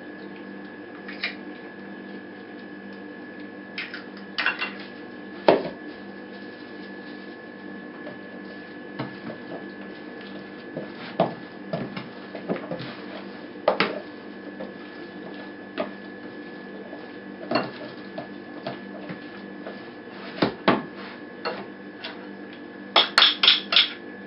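Wooden spoon stirring a wet mix of egg, chopped chicken and vegetables in a plastic basin, with scattered knocks of the spoon against the basin every second or two. Near the end comes a quick run of sharp taps as another egg is cracked, over a steady low hum.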